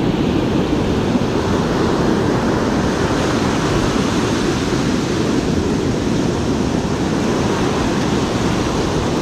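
Breaking ocean surf mixed with wind buffeting the microphone: a loud, steady rush of noise.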